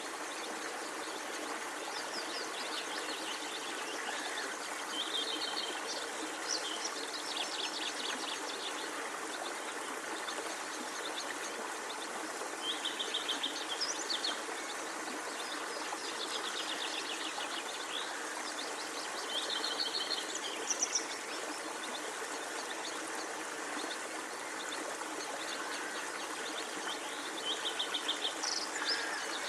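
A songbird singing short phrases of rapid, closely spaced high notes, repeated every few seconds over a steady rushing background noise.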